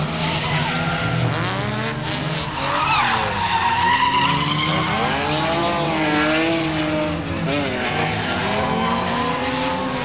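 Drift car's engine revving up and down as it slides sideways through the course, with its tyres squealing on the asphalt.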